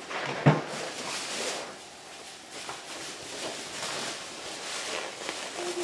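Plastic grocery bags rustling and crinkling as groceries are unpacked, with one sharp thump about half a second in.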